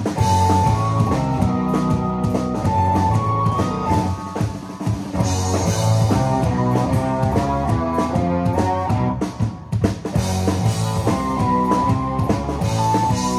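Live rock band playing: two electric guitars riffing over electric bass and a drum kit, heard through the stage PA.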